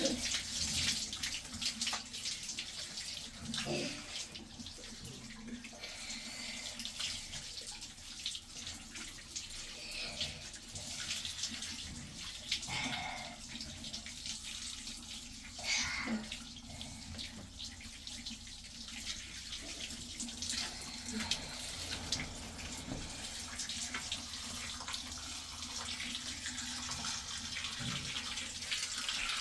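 Running water with a steady splashing hiss, broken by a few short clatters.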